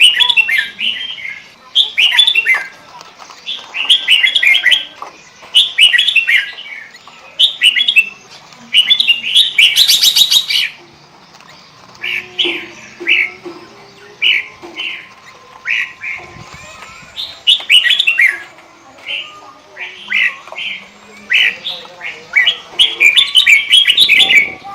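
Sooty-headed bulbul singing: short phrases of quick chirping notes, a new phrase every one to two seconds, with one harsh buzzy note about ten seconds in.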